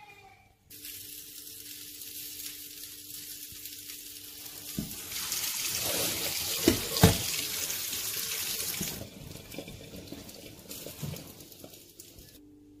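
Water running through a metal colander of boiled black-eyed peas in a stainless steel sink as the beans are rinsed. The flow gets heavier about halfway through, with a few sharp knocks, and eases off about three-quarters of the way through.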